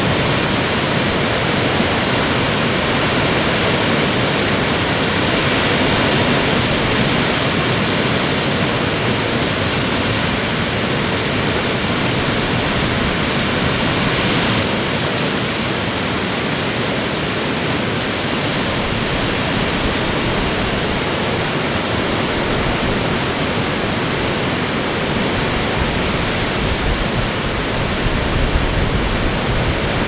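Big storm waves on Lake Superior breaking continuously on the shore, a steady dense wash of surf. More low-end rumble builds near the end.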